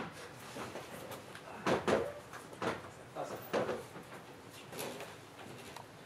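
Irregular footsteps and knocks from several people walking to the front of a room, about half a dozen separate thuds.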